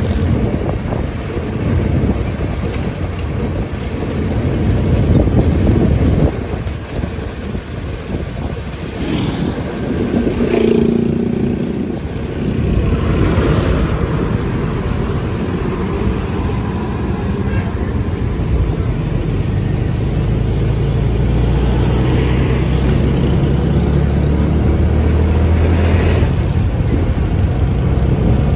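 Road traffic heard from a moving vehicle: steady engine and road rumble, with motorcycles, a bus and an oncoming truck passing close. A short pitched sound, like a horn, comes about ten seconds in, and a steady low engine hum comes in during the last third.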